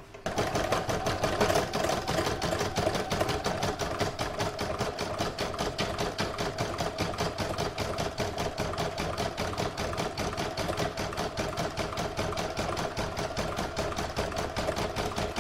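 Computerized embroidery machine stitching out the final round of an in-the-hoop design: a rapid, even patter of needle strokes over a steady motor hum, starting just after the beginning.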